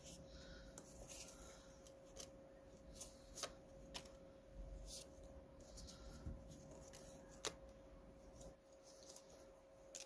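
Faint rustling and light ticks of small paper pieces being handled and sorted, over a faint steady hum.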